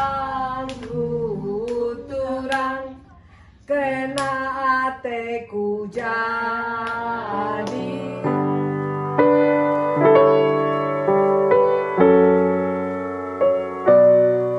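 Women's voices singing a song together, with a short pause about three seconds in. About eight seconds in the singing gives way to slow piano music, one held chord struck about every second.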